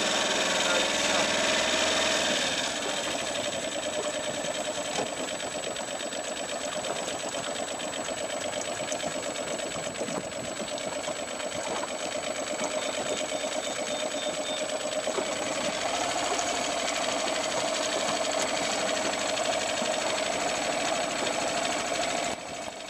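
Boat engine running steadily, a mechanical drone heard on board. Near the end it drops suddenly in level.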